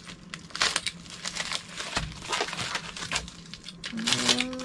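Metallic plastic bubble mailers crinkling and rustling in several bursts as they are handled and cut open with a craft knife.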